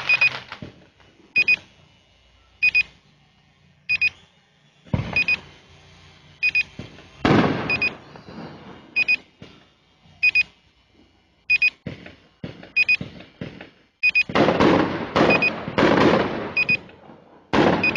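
Fireworks going off: irregular bangs and crackling bursts, coming thick and fast near the end. Under them a short electronic double beep repeats steadily, about every 1.2 seconds.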